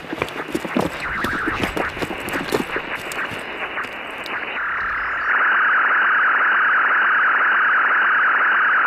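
Handheld radio crackling and clicking, then about five seconds in a steady, louder hiss of static.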